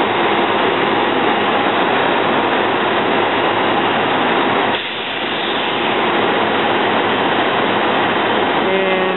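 SEPTA Silverliner IV electric commuter railcar pulling out of the station at close range: a steady, loud rush of wheels and running gear, dipping briefly about five seconds in.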